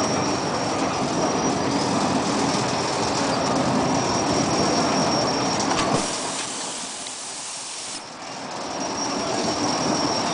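Petruzalek SpinoWraptor TRANS T3 automatic pallet wrapping machine running, a steady mechanical rumble and rattle with a thin high whine. About six seconds in there is a click and it goes quieter; near eight seconds another click, and it builds back up.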